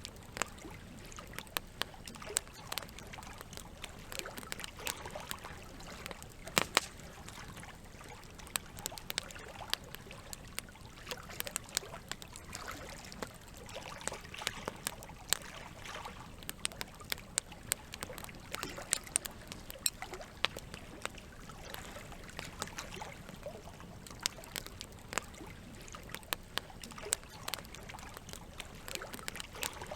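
Campfire crackling with frequent sharp, irregular pops, over a steady wash of running water.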